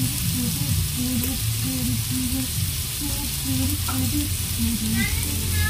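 Chicken pieces sizzling steadily as they brown in a pot, with a low tune of short notes running underneath.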